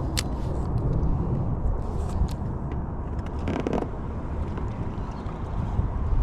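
Steady low rumble of wind and water on an open pontoon boat, with a few light clicks and a short rustle about three and a half seconds in.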